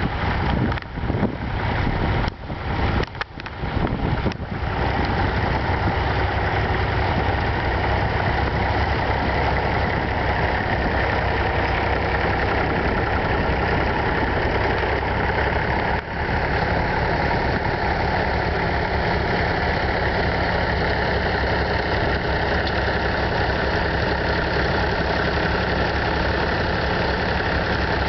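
Vintage tractor engine running steadily. In the first few seconds the sound dips and drops out briefly several times, then holds an even drone.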